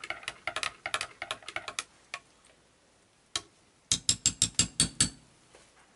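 Spoon stirring mica into thick soap batter in a glass measuring cup, clicking against the glass in quick runs of taps. A lull follows the first couple of seconds, then about eight louder clicks come in just over a second around four seconds in.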